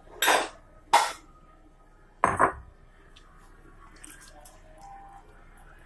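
Metal cookware clanking three times in the first few seconds as boiled potatoes are handled in a metal basin, followed by faint light clicks.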